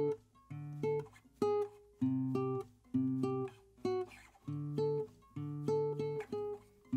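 Background music: an acoustic guitar strumming chords in a steady rhythm, about two strums a second.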